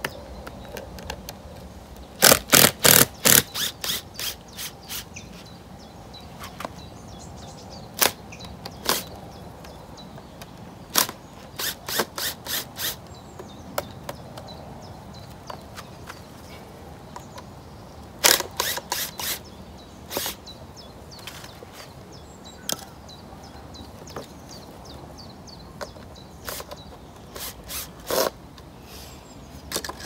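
Cordless drill-driver working at the screws of a plywood concrete pier form, making short runs of sharp, rapid clicks a few a second, repeated several times with pauses between.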